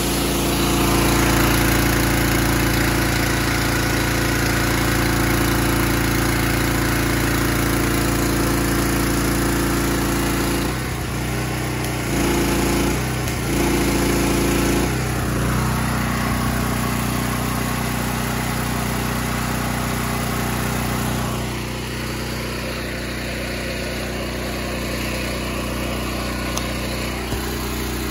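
Honda GX390 single-cylinder engine running a direct-drive pressure washer steadily. A little over ten seconds in, its sound cuts back and returns a few times in quick succession, then settles into a steady, slightly quieter running.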